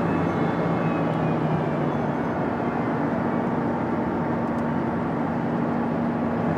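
Jet engines of a Singapore Airlines Airbus A330-300 (Rolls-Royce Trent 700s) running steadily: an even rumble with a few held tones over it.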